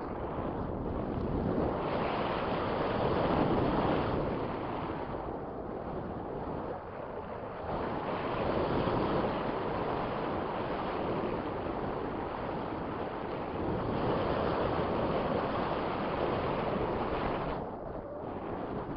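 Strong wind blowing over the microphone, a steady rushing that swells and eases every few seconds.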